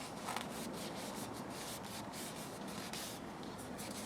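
Hand-scrubbing steel linesman's pliers to clean off grime: quick back-and-forth rubbing strokes, about three to four a second.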